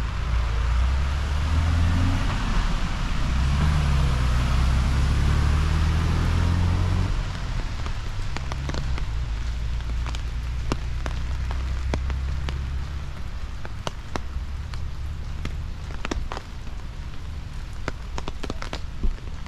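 Rain falling steadily, with a low rumble through roughly the first seven seconds that then fades. From about eight seconds in, single raindrops land in sharp, scattered taps.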